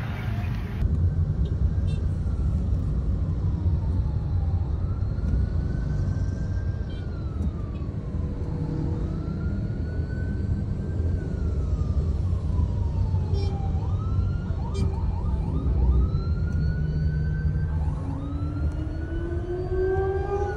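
A siren wailing, its pitch rising and falling slowly over several seconds and sweeping faster in the second half, heard over the low steady rumble of a car cabin moving in traffic.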